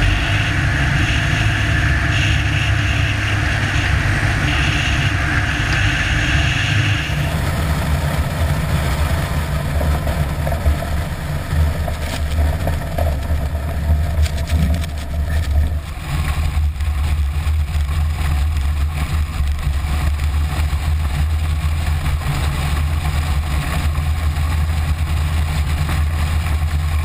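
Piper Super Cub's engine and propeller running steadily, picked up by cameras mounted outside the airplane. The sound changes abruptly about 7 and 16 seconds in.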